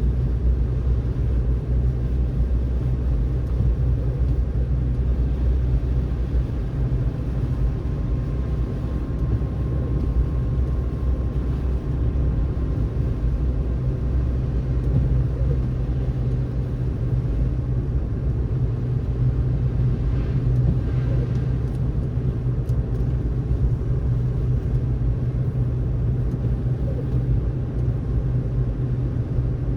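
Car driving on snowy roads: a steady low rumble of tyres and engine, with no changes in speed or gear.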